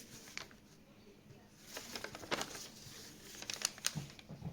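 Scattered soft crinkles and small sharp clicks from hands handling a squishy and its materials, with a brief lull about a second in.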